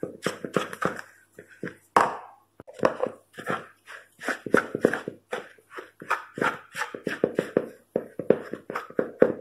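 Silicone-coated whisk stirring a dry mix of almond and coconut flour in a plastic bowl: quick repeated scraping and tapping strokes, several a second, with a few short pauses.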